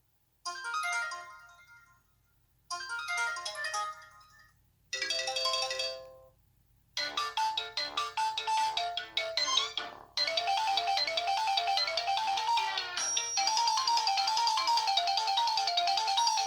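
Preloaded ringtones on a Samsung Intensity III phone, played one after another: three short chiming phrases about two seconds apart, each fading out, then a faster tune from about seven seconds in, changing to another looping melody at about ten seconds.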